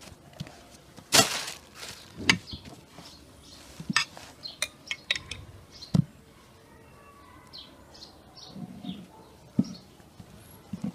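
Food-handling sounds: a loud swish as a sheet of lavash flatbread is folded about a second in, then a run of sharp clicks and taps as a spoon scoops cream from a jar. Small birds chirp in the background.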